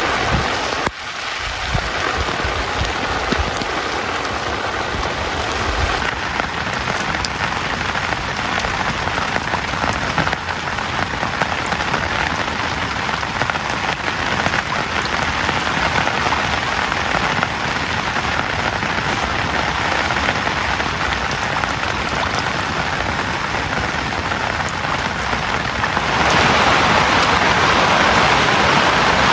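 Heavy rain falling steadily, a dense patter of drops, growing louder about three seconds before the end.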